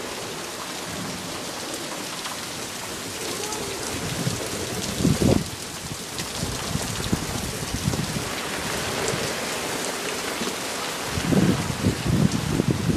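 Heavy rain pouring steadily, an even hiss of rain on the ground and roofs. Low rumbling bursts come through about five seconds in and again near the end.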